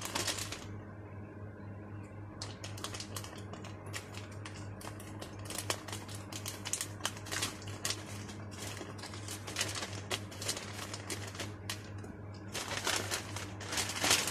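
Scissors snipping through a plastic courier mailer bag, the plastic crinkling in quick irregular clicks, with a louder burst of plastic rustling near the end as the bag is pulled open. A steady low hum runs underneath.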